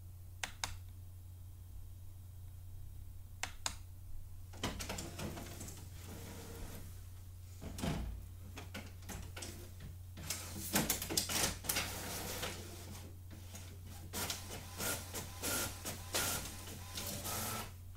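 HP printer-scanner all-in-one starting a print job: two short clicks, then from about four seconds in the mechanism whirring and clacking in uneven spurts, over a steady low hum.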